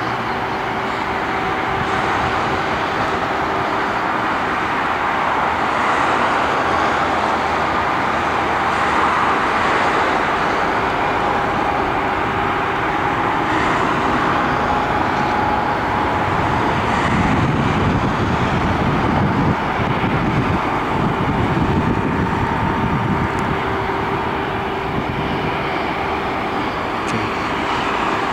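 Steady whine and rumble of an Airbus A340 jet airliner on the taxiway, its tones drifting slightly in pitch. A heavier low rumble swells in the middle.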